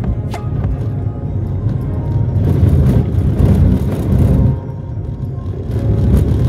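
Car driving on an unpaved dirt road: a low rumble of engine and tyres on the rough surface, with a few short knocks from bumps.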